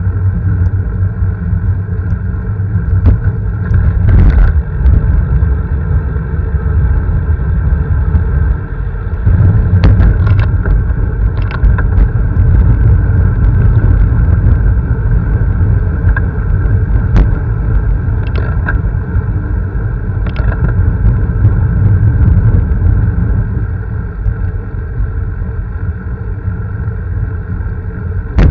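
Steady low rumble of riding noise on a vehicle-mounted camera's microphone, with a few short knocks from bumps in the road.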